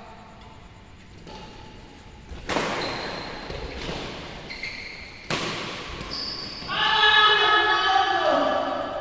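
Badminton rackets striking a shuttlecock during a rally in an echoing hall: a few light taps and two sharp, loud hits about three seconds apart. Near the end, a player shouts loudly.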